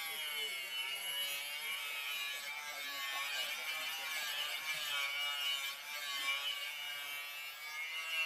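Electric angle grinder with an abrasive flap disc grinding a steel knife blade forged from rebar: a continuous hiss of abrasion over the motor's whine, whose pitch wavers as the disc is pressed harder or eased off the metal.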